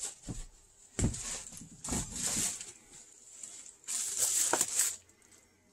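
Rustling and soft bumps close to the microphone, as a person moves about and settles in front of it, in four short bursts.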